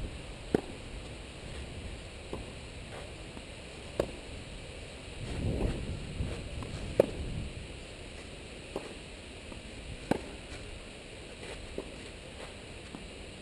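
Tennis rally: a ball struck back and forth by rackets, a sharp hit roughly every one and a half to two seconds, about eight in all. The hits alternate between louder ones from the near player and fainter ones from the far player.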